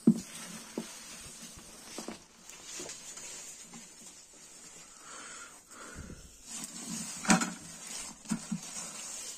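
Radicchio plants and leaves rustling as they are handled with gloved hands in plastic basins, with a few sharp knocks; the loudest knocks come right at the start and about seven seconds in.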